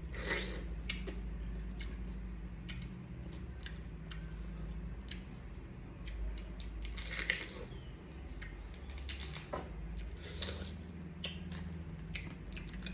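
Sea crab being eaten: scattered cracks and crunches of shell being broken and chewed, the loudest about seven seconds in, over a steady low hum.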